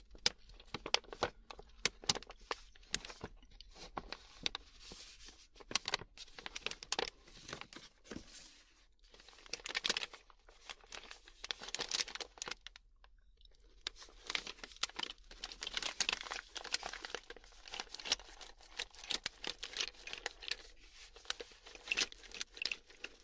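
Snack packaging crinkling and being torn open, a dense run of irregular crackles with a short lull about halfway through.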